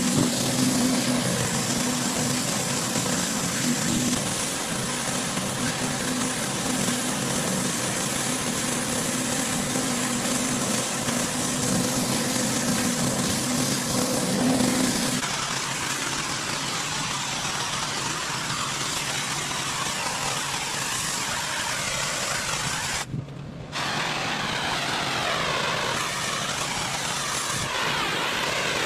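Pressure washer running, its engine humming steadily under the hiss of the high-pressure water spray. About halfway through the engine hum fades under the spray noise, and a little over three-quarters through the sound cuts out for a moment.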